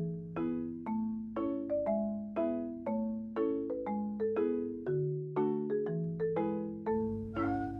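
Background music: a light melody of struck mallet-instrument notes like a marimba, about two notes a second, each ringing and fading.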